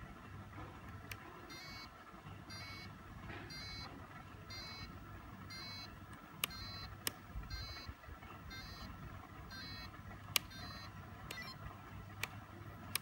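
Reversing beeper from a large RC Scania truck's sound module: short electronic beeps repeating at a steady pace, over a low steady hum and a few sharp clicks.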